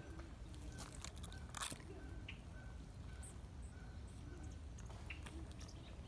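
Woodpecker pecking at tree bark: a few irregular sharp taps, the loudest about a second and a half in, over a low steady rumble.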